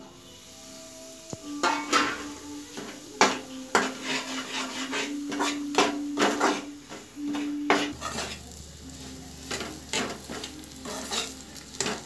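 Semolina poured into hot ghee in a small metal pan, then stirred with a perforated metal skimmer: repeated irregular clinks and scrapes of the skimmer against the pan over a light sizzle as the semolina begins to roast.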